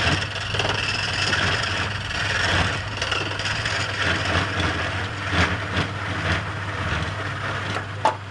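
Wood lathe running with a steady motor hum while a turning tool cuts into the spinning wood, giving a continuous scraping hiss that swells and eases with each pass. A sharp click near the end.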